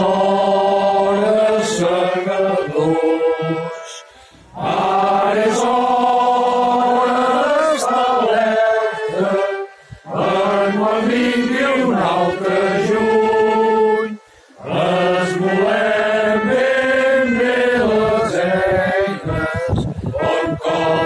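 A Caramelles choir singing a Catalan song together, in long phrases with short breaks for breath about four, ten and fourteen seconds in.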